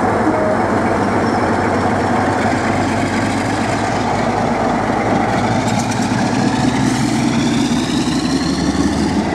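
Class 47 diesel locomotive's Sulzer twelve-cylinder engine working hard as it pulls away from a station, a loud, steady run with a whine rising in pitch from about halfway through.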